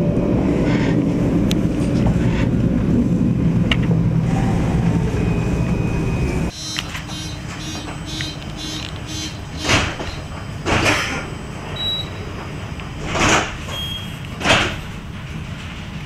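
Tram rolling along with a steady low rumble that cuts off abruptly after about six seconds, giving way to the quieter hum of the tram car standing at a stop, with four short hisses in the second half.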